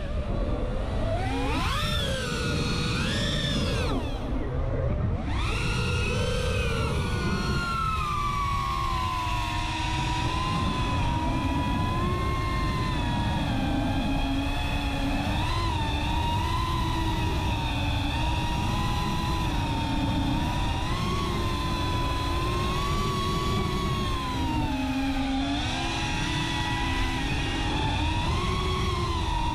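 The motors and propellers of a CineLog35 cinewhoop FPV quadcopter whining in flight, the pitch swinging up and down with the throttle, briefly dropping off about four seconds in, then holding steadier with small rises and falls. A steady low rush of wind and prop wash runs under the whine.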